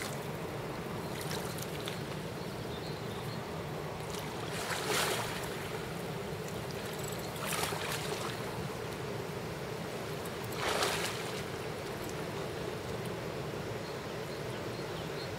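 Steady rushing of river water, with three brief splashes, about 5, 7.5 and 11 seconds in, as a big hooked fish thrashes at the surface in the shallows.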